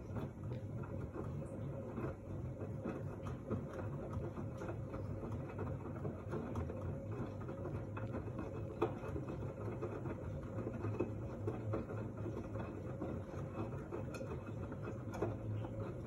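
LG F1289TD direct-drive washing machine running, its drum turning a wet, soapy load: a steady motor hum with a light, irregular patter of sloshing water and tumbling laundry.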